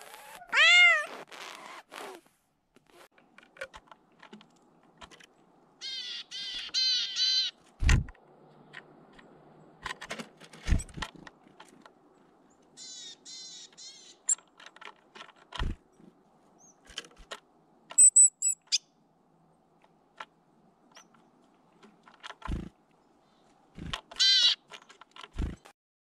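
A cat meows once near the start; later small tits at a sunflower-seed feeder give several series of high calls, with sharp knocks and taps scattered throughout.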